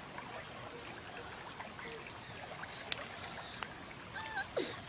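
Shallow creek water trickling steadily over rocks, with a few light splashes and a child's short high call near the end.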